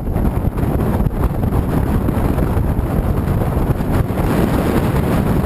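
Steady wind rush over the microphone aboard a bass boat under way, with boat and motor noise underneath.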